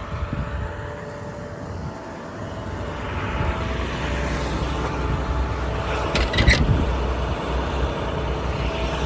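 A 2009 International DuraStar service truck's 7.6 L MaxxForce diesel engine running steadily, growing a little fuller about three seconds in. A short cluster of sharp clanks or hiss comes about six seconds in.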